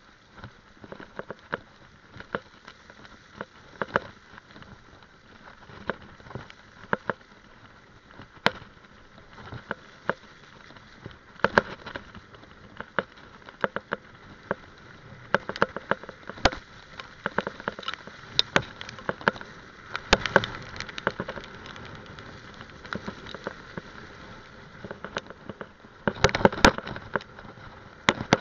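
Mountain bike riding over a wet, muddy gravel trail: a steady hiss of tyres on the wet surface with frequent irregular clicks and rattles as the bike jolts over bumps, busiest around the middle and near the end.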